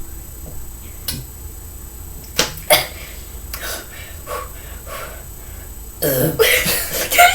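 A few sharp gulping clicks as soda is chugged, then about six seconds in a loud, rough burp after the carbonated drink.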